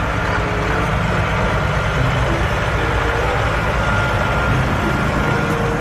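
Heavy diesel semi-truck engine running steadily with a deep, even rumble.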